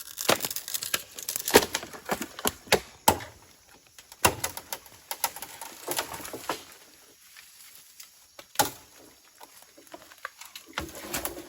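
Bamboo being cut and handled: irregular sharp knocks and cracks, thick and fast for the first several seconds, then a few scattered strikes with one louder knock past the middle.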